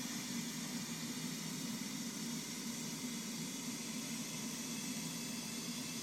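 Steady hiss with a low hum underneath, unchanging throughout, with no distinct events.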